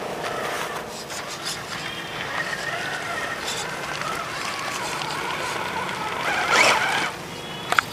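Whine of a scale RC crawler's electric motor and gearbox, rising and falling in pitch with the throttle as the truck crawls, with small clicks and a brief louder noise about six and a half seconds in.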